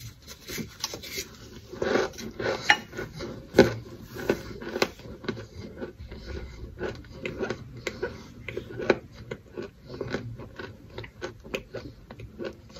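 Crunching and chewing of crisp baked cornstarch chunks: a dense run of irregular crisp crunches, with a few louder bites in the first five seconds.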